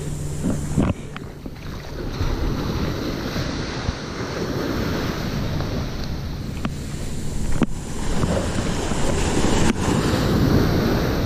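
Ocean surf breaking and washing up the sand at the water's edge, swelling louder near the end, with wind buffeting the microphone. A few brief clicks sound through it.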